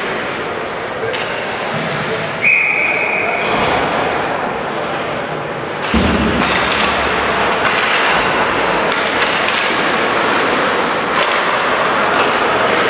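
Ice hockey rink during a game: a steady din of voices and skate and stick noise, a short high whistle tone about two and a half seconds in, and a sudden thud about six seconds in as play resumes, after which the din is louder.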